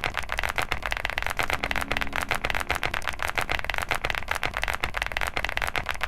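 Computer keyboard being typed on fast and without pause, a dense clatter of key clicks.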